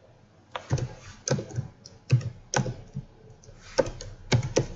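Typing on a computer keyboard: irregular single keystrokes, a few each second, starting about half a second in.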